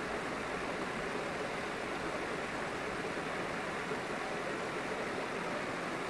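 Steady rush of water from a waterfall and the stream below it, an even noise with no breaks.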